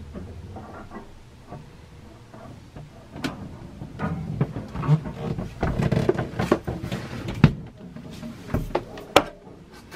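Irregular knocks, bumps and rustling from a handheld camera being carried and handled through a yacht's wooden cabin, with sharp clicks about seven and nine seconds in.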